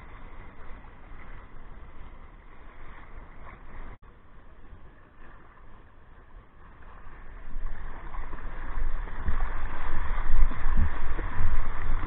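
Sea water rushing and splashing around a plastic surf kayak's hull, heard close on a boat-mounted camera. It drops to a quieter lapping after a cut about four seconds in, then builds from about eight seconds into a loud rushing hiss with low rumbling as the kayak is carried along on a breaking wave.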